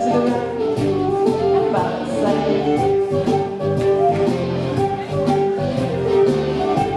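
Contra dance tune played by a live band: a sustained melody line over a steady, even beat.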